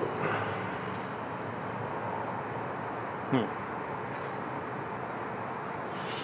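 Crickets trilling in a steady, high, continuous chorus. About three seconds in, a brief sound sweeps sharply down in pitch.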